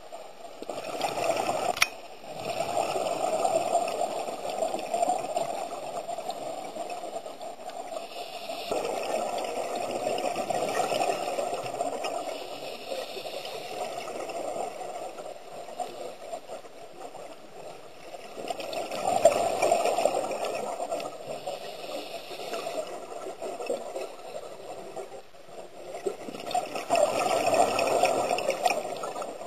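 Scuba regulator exhaust bubbles gurgling underwater, swelling four times, about every eight to ten seconds as the diver breathes out. A single sharp click about two seconds in.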